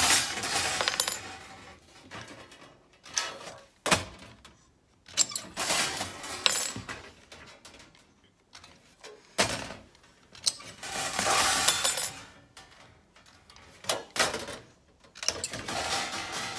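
Hand tin snips cutting the corners off a sheet steel blank: a series of short, crunching cuts, with the sheet rattling and scraping on the bench between them and small cut-off corners clinking down.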